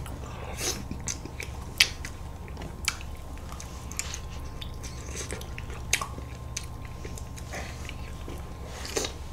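Close-miked eating sounds as two people spoon and eat soft ice cream: quiet mouth and lip sounds with a few sharp clicks scattered through, over a steady low hum.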